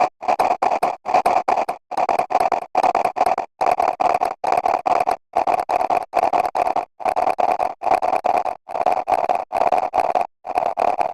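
Kinemaster's 'Boo!' sound effect repeated over and over, each play chopped into rapid stutters, with short silent gaps about every second and a half.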